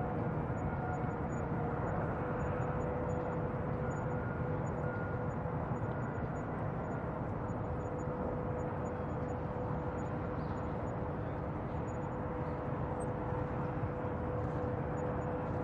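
Bayside ambience: a steady, even rumble with a constant low hum running through it.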